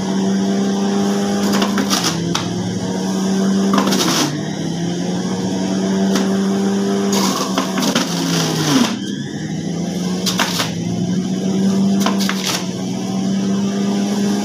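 Electric centrifugal juicer motor running with a steady hum while vegetable and fruit pieces are pushed down its chute. Its pitch sags several times as the pieces load the blade, with short crackles from the produce being shredded.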